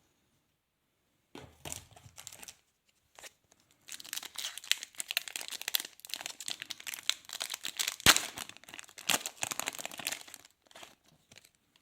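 A trading card pack wrapper being torn open and crinkled by hand. There is a short rustle first, then several seconds of dense crinkling and tearing with one sharp snap partway through.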